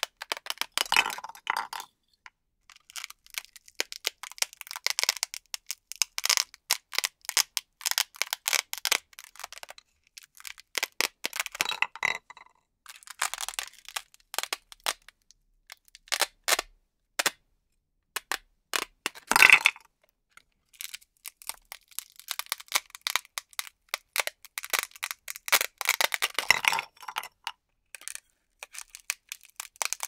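Hook-and-loop Velcro ripping apart again and again as toy plastic fruit pieces are cut apart with a toy knife and pried off a Velcro-covered disc. The tears are crisp and crackling and come in spells of a second or two with short pauses between, the loudest about two-thirds of the way through.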